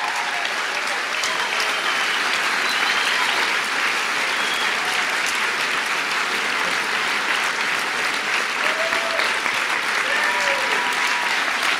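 Large audience applauding, a steady clapping with a few voices calling out over it.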